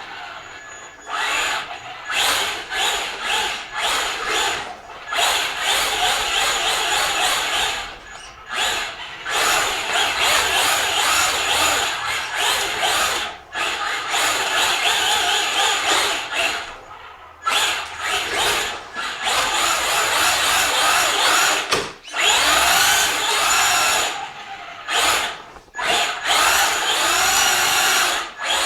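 Traxxas Slash RC truck's motor and drivetrain whining in repeated bursts of throttle, the pitch rising and falling as it speeds up and slows, with brief pauses every few seconds.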